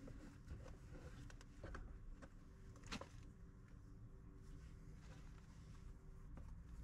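Near silence: faint low room tone with a few small clicks, the clearest about three seconds in.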